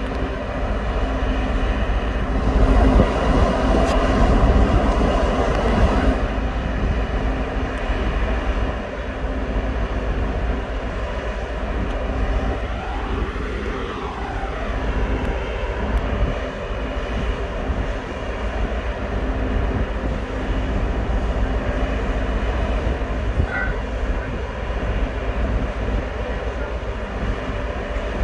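Steady drone of large engines running, with several steady tones through it. It grows louder for a few seconds about three seconds in, and a brief rising-and-falling engine note comes about midway.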